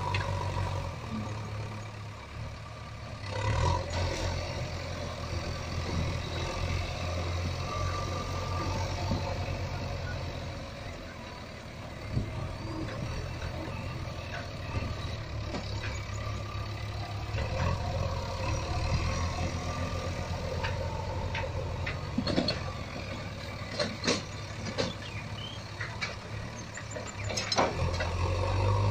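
A low, steady motor-like hum that drops out briefly a couple of times, with scattered sharp clicks and knocks.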